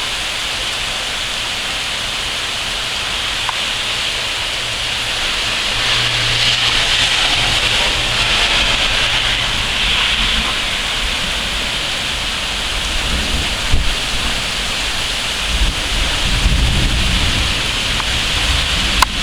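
Heavy rain pouring steadily, a dense hiss. Low rumbling comes in over the second half of the storm sound, and a single sharp click sounds near the end.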